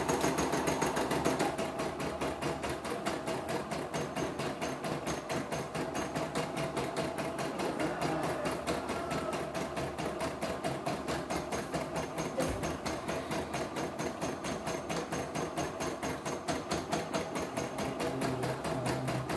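CNY E960 computerised embroidery machine sewing out a design, its needle stitching in a rapid, even rhythm of clicks.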